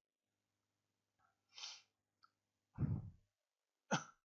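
A person's breathing noises: three short, sharp breaths or sniffs about a second apart, between stretches of near silence.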